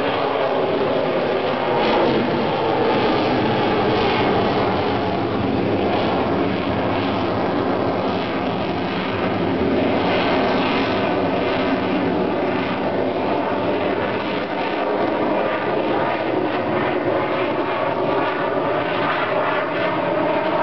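Jet noise from a Sukhoi fighter in flight: a loud, steady rush from its engines.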